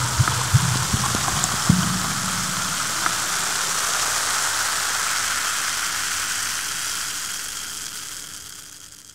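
Carbonated water fizzing: a dense crackle of bursting bubbles, with a few low splashes in the first two seconds. It fades out near the end.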